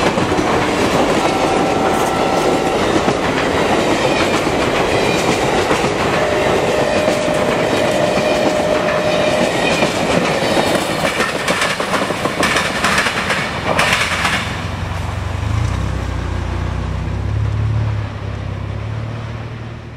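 Amtrak passenger train's stainless-steel cars passing at speed: a loud rush of wheels on rail with clickety-clack over the rail joints and a few brief whining tones. About three-quarters of the way through the rush gives way to a low steady hum that fades out.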